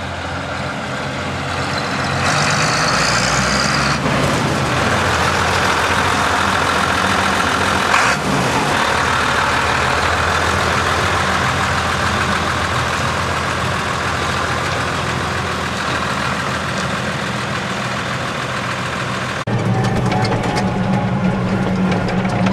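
New Holland 7840 tractor's six-cylinder diesel engine running steadily, growing louder over the first couple of seconds. About 19 seconds in the sound changes abruptly to a heavier, fuller engine drone as heard from inside the cab while driving.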